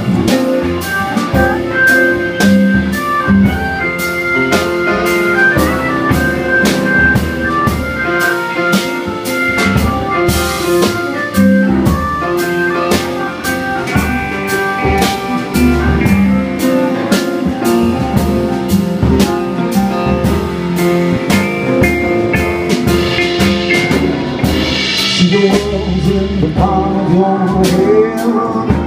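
Live band playing an instrumental break: a drum kit keeping a steady beat under upright bass, grand piano, a Nord Electro 4 stage keyboard and a semi-hollow electric guitar.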